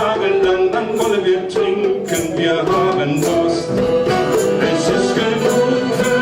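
Music: a folk-song arrangement with melody instruments over a steady beat.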